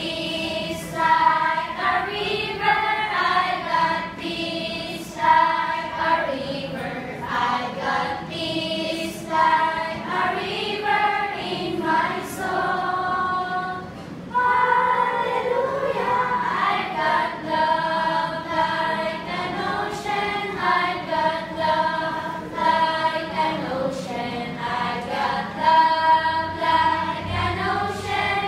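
A group of children singing together in Tagalog, a children's church song, with a short break about halfway through before they carry on.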